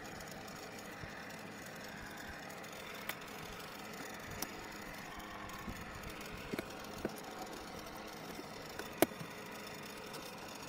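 Scattered light clicks and taps of small hardware being handled and fitted into a pickup truck's bare front pillar, the sharpest about nine seconds in, over faint steady background noise.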